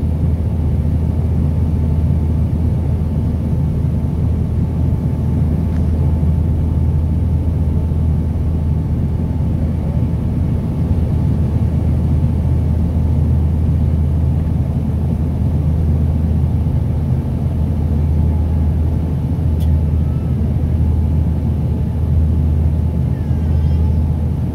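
Cabin noise of a Dash 8-300 turboprop airliner on approach: its Pratt & Whitney Canada PW123 engines and propellers make a steady, loud, low drone.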